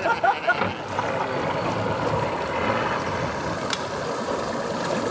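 Outboard motor on a bass boat running steadily at low speed as the boat comes slowly in to the dock. A single sharp knock sounds a little past the middle.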